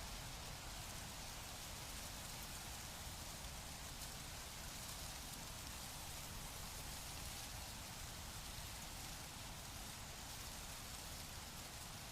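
Wind blowing through plant leaves, a steady, even rustling hiss with a low rumble underneath.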